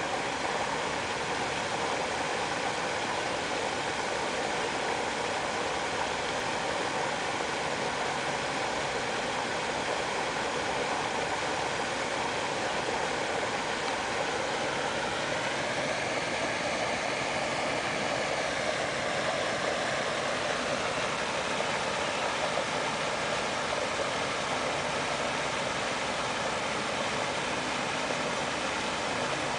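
Steady background noise: a constant rushing hiss with faint humming tones, which rise slightly in pitch about halfway through and then settle.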